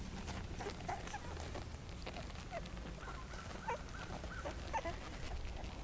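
Newborn whippet puppies nursing, giving a few faint, short squeaks and whimpers, most of them in the second half.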